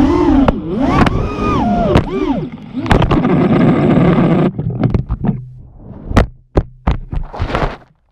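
FPV quadcopter's motors whining, the pitch rising and falling with the throttle, then the drone crashes into a tree: a sharp knock about three seconds in, followed by a low hum and a series of separate knocks and snaps as it tumbles through the branches to the ground.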